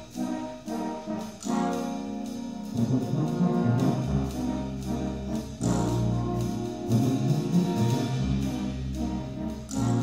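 A batterie-fanfare band of brass and percussion playing, with sustained brass chords over low bass notes and regular percussion strokes.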